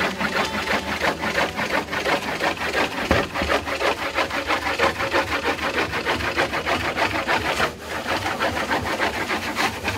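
Sheets of handmade paper being smoothed by hand onto a wooden drying board: a run of quick, repeated rubbing strokes of hands over paper and wood.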